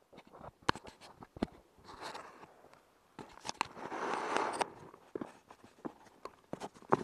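Muffled handling and water noise from an action camera in a waterproof housing dipped just under the surface of a stream: scattered sharp knocks and clicks, with a louder sloshing rush about halfway through.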